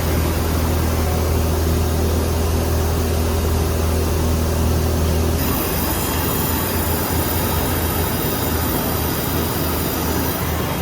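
OKK HM-500S horizontal machining center running under power, a steady mechanical hum with steady tones. About halfway through the sound changes: the low hum eases and a high, steady whine comes in.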